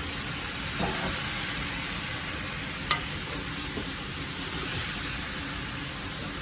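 A pot of curry sizzling and frying while it is stirred, with one sharp knock about three seconds in.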